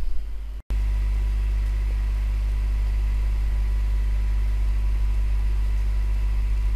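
Steady low electrical hum in the recording, with no change in pitch or level, which cuts in abruptly after a brief dropout about half a second in.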